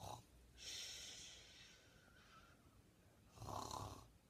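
Faint snoring: two slow, breathy snores about three seconds apart.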